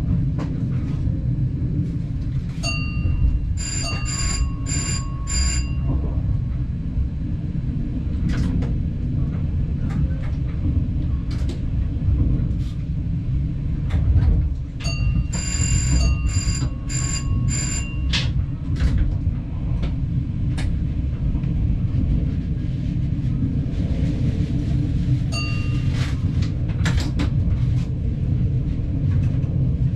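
Passenger train running, heard from the driver's cab: a steady low rumble with occasional sharp clacks. Twice, a short run of about four ringing, bell-like pips sounds, once a few seconds in and again about halfway through.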